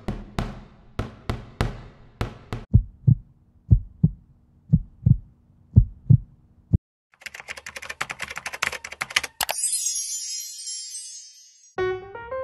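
A run of sharp knocks and taps over the first seven seconds, then a quick burst of fast clicking, a bright high shimmering chime, and piano music starting near the end.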